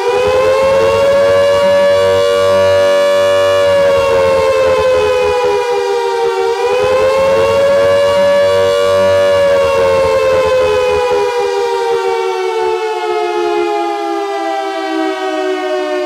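Air-raid siren sounding the attack warning, a rising and falling wail. The pitch climbs and holds, sags, climbs and holds again, then slides down in a long, slow fall over the last several seconds.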